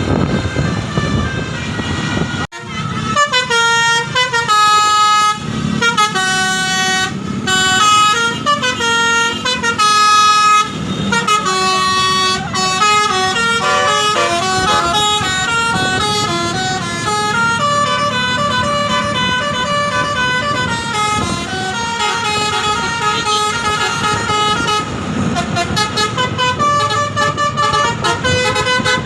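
Bus telolet basuri multi-tone air horn playing a tune of held notes that step up and down in pitch, over the bus engine running. The tune starts after a brief sharp break about two and a half seconds in; before that only engine and road noise are heard.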